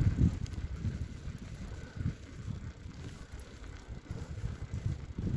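Wind buffeting the microphone in low, uneven gusts while riding along a tarmac road, with a soft rumble of tyres underneath.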